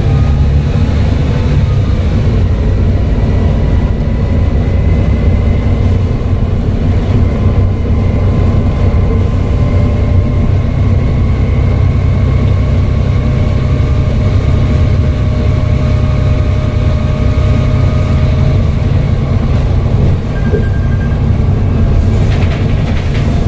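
Volvo B7TL bus's six-cylinder turbodiesel running steadily under way, a deep rumble with thin turbocharger whistles drifting slowly up and down in pitch over it.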